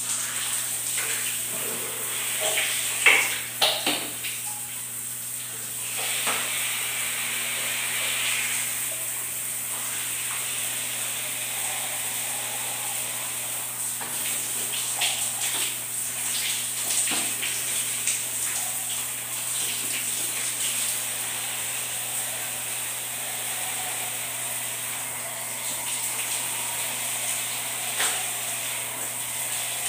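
Shower water spraying steadily, a continuous hiss with a low hum underneath. A few sharp splashes and knocks come about two to four seconds in.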